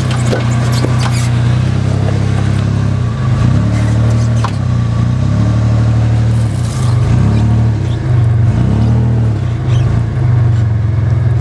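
Toyota 4Runner engine running at crawling speed over rock, the revs rising and falling several times as the driver works the throttle. A few light clicks and knocks come through over the engine.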